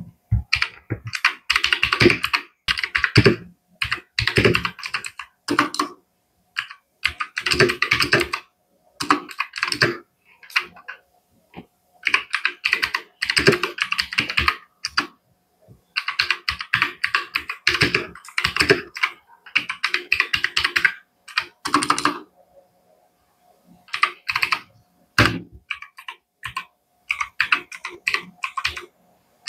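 Typing on a Dareu EK861 60% mechanical keyboard with blue switches, picked up close to the keys: runs of sharp clicks, in bursts of a second or two with short pauses between.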